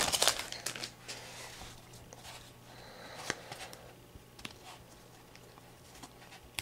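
Foil wrapper of a trading-card pack crinkling briefly as the cards are pulled out, then soft clicks and slides of cardboard cards being flipped through one by one.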